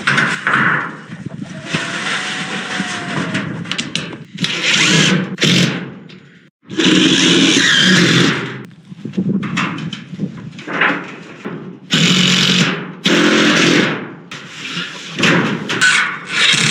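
Power drill driving screws through sheet metal into the wood beneath, running in about ten short start-stop bursts.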